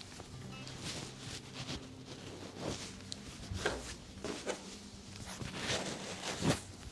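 Irregular rustling and shuffling of clothing and bodies as a chiropractor moves and positions a patient, with soft knocks throughout and a dull thump near the end.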